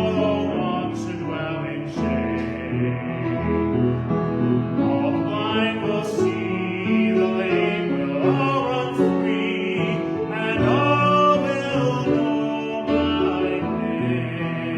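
Slow sacred music: a sustained melody line with vibrato over chordal accompaniment, with no clear words.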